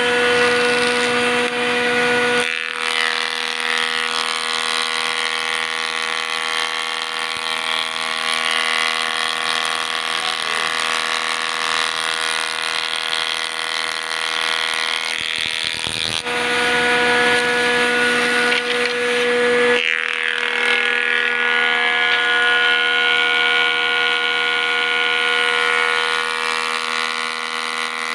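Combination woodworking machine (jointer-planer with a side cutter head) running with a steady, many-toned whine while a curved wooden piece is cut against its cutter. The tone changes a few times, about two seconds in, near the middle and again a few seconds later.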